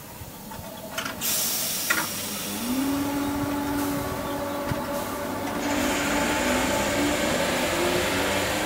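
Great Northern electric multiple unit moving past, its motors whining up in pitch about two and a half seconds in and then holding a steady note. Under the whine is a rush of noise that grows louder about a second in and again past halfway.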